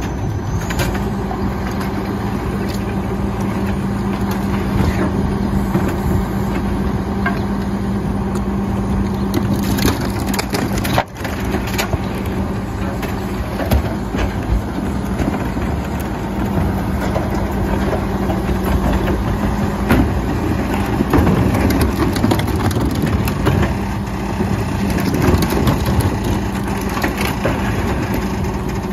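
Heil PowerTrak rear-loader garbage truck on an Autocar WX chassis working its packer: the engine runs with a steady hum that comes in about a second in and holds, while refuse is crushed in the hopper. Plastic wheeled carts knock against the hopper edge as they are tipped.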